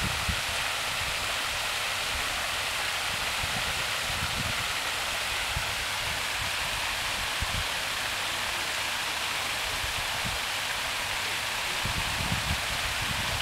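Fountain water pouring in a continuous curtain over the rim of a wide round basin into the pool below: a steady rushing splash.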